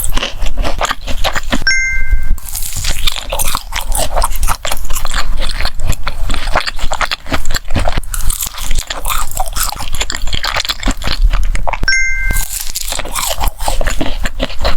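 Close-miked mukbang eating: a steady run of crisp bites and crunchy chewing. A short two-note ding sounds twice, about two seconds in and again near twelve seconds.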